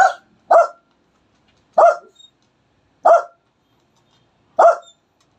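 A dog barking in single short barks, five in all, one every second or so with silence between.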